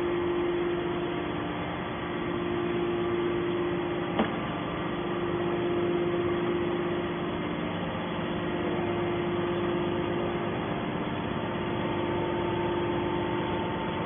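Hydraulic scrap metal baler running: a steady machine hum with a held tone from its motor and pump, and one sharp click about four seconds in.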